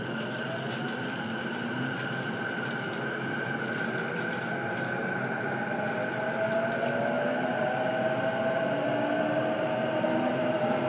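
JR East E233-7000 series electric train heard from inside motor car MoHa E233-7433: the inverter and traction motors whine in slowly rising tones as the train accelerates, with the running noise growing louder.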